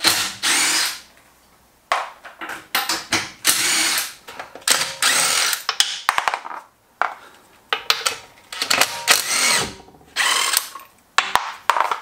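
Impact wrench running in repeated short bursts, each about half a second to a second long, spinning the lug nuts off a Nissan GT-R's front wheel. Sharp clicks come between the bursts.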